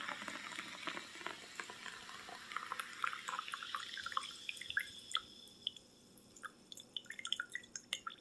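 Liquid pouring in a thin stream from an upturned aluminium can into a glass jar, splashing steadily at first, then breaking into separate drips in the second half as the can runs empty.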